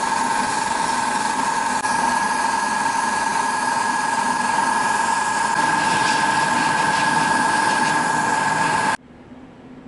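Gravity-feed airbrush spraying paint: a steady hiss of air with a high, even whistling tone. It cuts off suddenly near the end.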